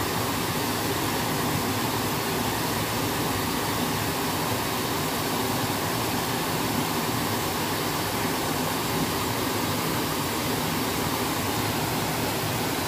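Water pouring over a small weir into a fast-flowing river: a steady, even rush.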